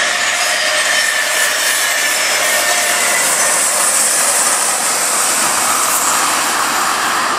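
DB class 120 electric locomotive with an Intercity train passing close by: a steady loud rush of wheels on rail, with a faint high whine that sinks slightly in pitch over the first few seconds.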